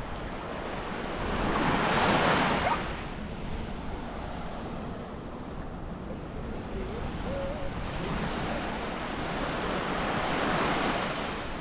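Sea waves washing in, swelling twice, about two seconds in and again near the end, with some wind noise on the microphone.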